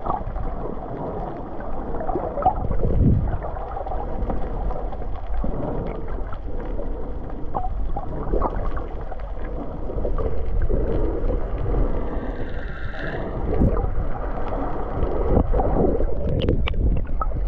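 Wind buffeting the microphone, a gusty low rumble that rises and falls unevenly.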